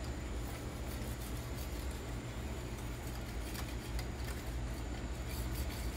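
Quiet room tone: a steady low hum with a few faint clicks as the phone is moved around.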